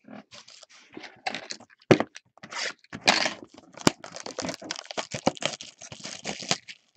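Foil wrapper of a trading-card pack being torn open and crinkled by hand: an irregular crackle with a couple of sharp clicks.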